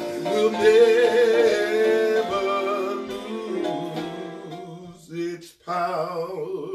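A man singing a slow gospel hymn, holding long notes with a wavering vibrato over soft instrumental backing. The singing grows quieter about halfway through and ends in a few short phrases.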